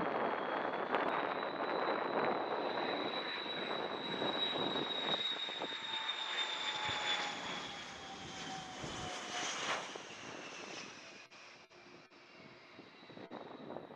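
Tupolev Tu-134's two rear-mounted Soloviev D-30 turbofan engines on landing approach: a jet roar with a high whine that slowly falls in pitch as the aircraft passes, fading after about ten seconds.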